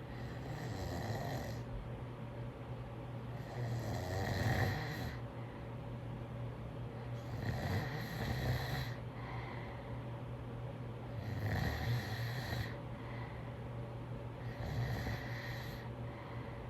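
Snoring with a steady rhythm: five drawn-out snores, one about every three and a half to four seconds, each lasting a second or so.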